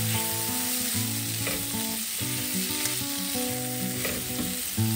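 Shrimp, onion and chili sizzling steadily in hot oil in a nonstick frying pan, stirred and scraped with a silicone spatula. Soft background music of held notes plays under it.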